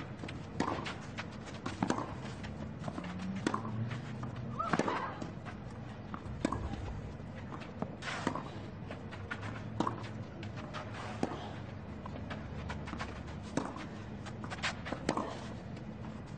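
Tennis rally on a clay court: sharp racket strikes on the ball every second or so, over a low murmuring crowd.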